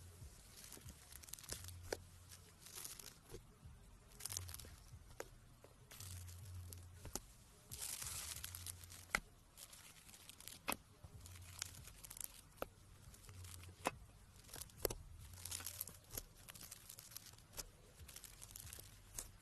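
Slime being worked by hand: irregular sticky crackling and sharp little clicks, with soft rustling bursts, as it is stretched, torn and pressed.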